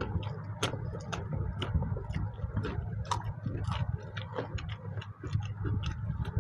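Close-miked eating sounds: chewing and wet mouth smacks of mutton curry and rice eaten by hand, with fingers mixing rice on steel plates. It comes as irregular sharp clicks, several a second, over a steady low rumble.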